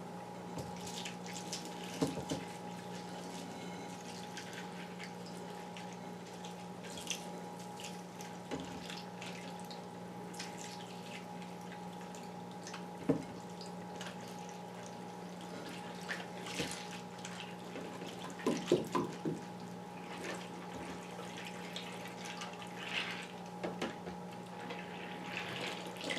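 Milk pouring from a one-gallon jug into a large bowl of cereal, a long steady stream with a few brief louder spikes along the way, over a steady low background hum.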